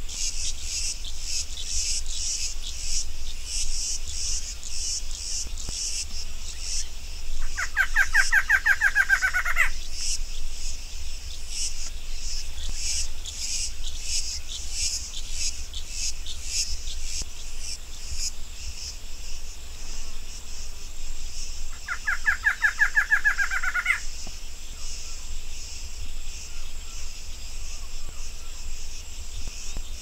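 Female barred antshrike song, twice: each a fast run of nasal notes lasting about two seconds and rising slightly in pitch. Under it a steady, pulsing chorus of insects.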